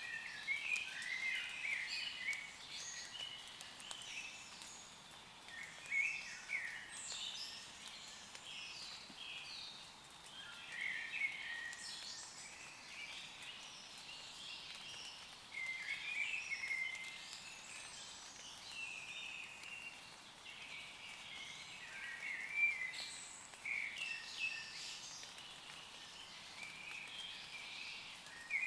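Woodland songbirds singing in short, chirpy phrases that come in clusters every few seconds, over a faint, steady hiss of light summer rain on leaves.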